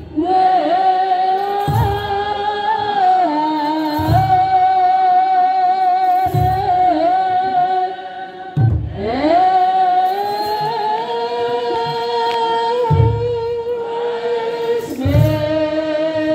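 Ethiopian Orthodox wereb hymn sung by a choir in unison, in long drawn-out notes that glide up at the start of each phrase, with a short break about eight seconds in. A kebero drum is struck about every two seconds under the singing.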